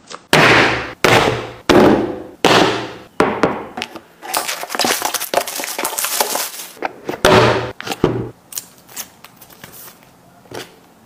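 Tablet box and packaging being handled for unboxing: four sharp, loud sounds in quick succession that each fade over about half a second, then a stretch of dense crackling, another loud sharp sound about seven seconds in, and a few fainter clicks near the end.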